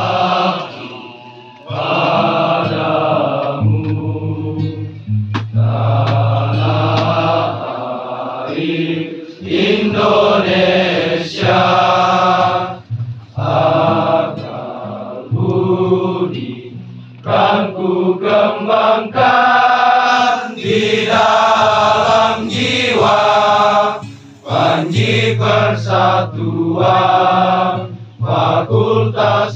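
A large crowd singing a hymn together in unison, in long held notes with short breaks between phrases.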